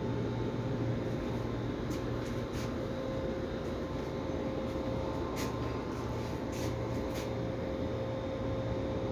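Steady machine hum with a constant tone and a low hum that swells and fades, broken by a few light clicks in the middle.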